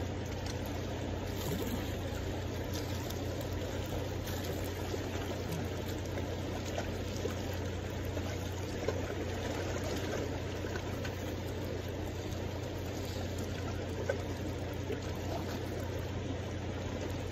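Steady rushing of a fast-flowing river's current.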